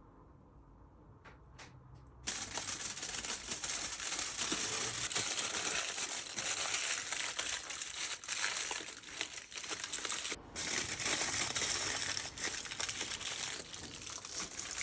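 Aluminium foil crinkling and crackling as it is handled, starting suddenly about two seconds in and continuing, with a brief break about ten seconds in.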